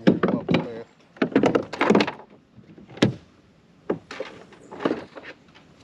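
Irregular series of loud knocks and rattling clatters in separate bursts, the sound of handling on a plastic fishing kayak.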